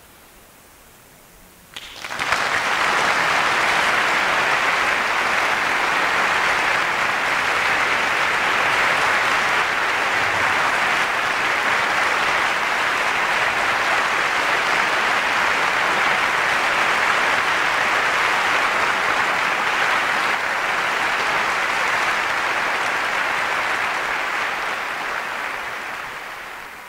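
Concert audience applauding: dense, steady clapping that breaks out suddenly about two seconds in and fades away near the end.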